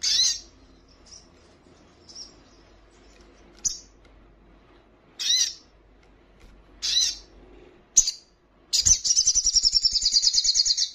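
Olive-backed sunbird calling: short, sharp high chirps a second or two apart, then a rapid high trill lasting about two seconds near the end.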